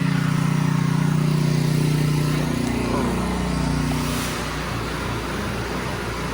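An engine running with a steady hum. Its tone shifts about three seconds in, and it runs a little quieter after that.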